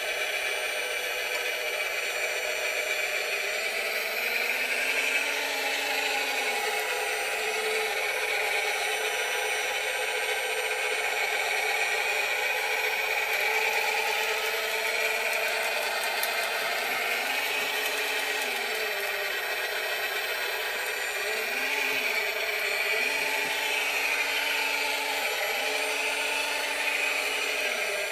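Radio-controlled scale Cat 966 wheel loader's electric motors and gearing whirring steadily as it grades dirt. A low tone rises and falls several times as the machine drives back and forth and works its bucket.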